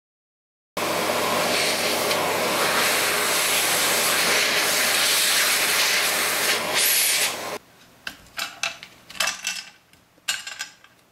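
Vacuum cleaner running with a loud, steady hiss as its hose sucks MDF dust off the milled board, cutting off abruptly about seven and a half seconds in. A few short knocks and rattles follow as the MDF board is handled on the router's aluminium bed.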